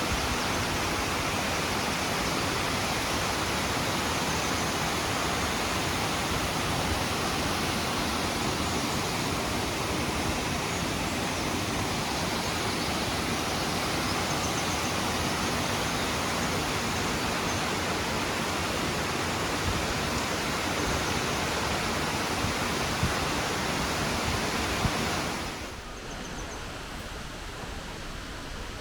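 Nachi Falls, a very tall waterfall, sending down a steady, even rush of falling water. About 25 seconds in, the rush drops to a noticeably quieter level.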